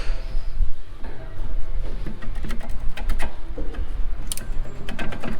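Scattered metallic clicks and knocks from working on a Brembo brake caliper: the pistons being pushed back and the worn brake pads handled. A steady low hum runs underneath.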